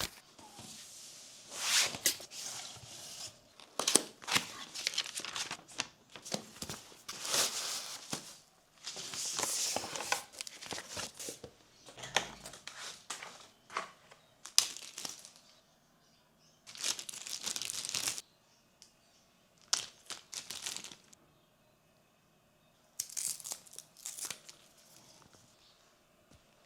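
Packaging being opened and handled: repeated bursts of tearing and crinkling, some lasting a few seconds, with short quiet pauses between them.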